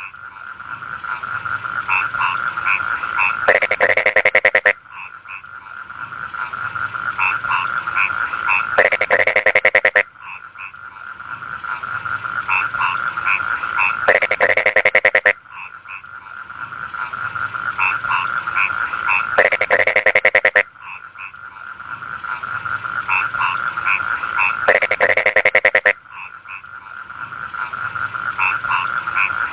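A chorus of rice-field frogs croaking steadily, swelling in loudness. About every five seconds comes a loud burst of rapid pulsed croaks about a second long, and then the chorus drops back, in a repeating cycle.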